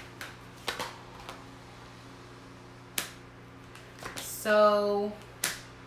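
A deck of tarot cards being shuffled by hand: scattered card clicks and slaps, the sharpest about three seconds in.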